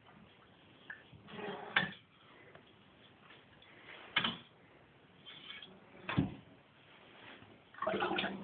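Four separate knocks and clatters spread over several seconds from a glass wine bottle being handled with a plastic funnel in its neck.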